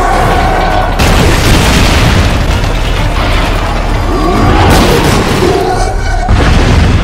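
Heavy booming impacts and crashing rubble from a giant-creature fight, over a loud dramatic music score. A big crash hits about a second in, and another sudden burst comes near the end.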